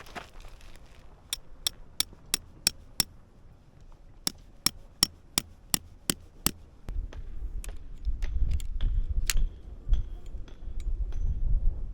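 Tent pegs being hammered into stony, gravelly ground: two runs of sharp strikes, about three a second, then scattered strikes over a low rumble in the second half.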